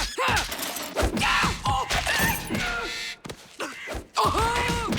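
Cartoon scuffle: a string of short grunts and yelps, one every second or so, mixed with sharp hits and thuds, and a longer pained cry near the end.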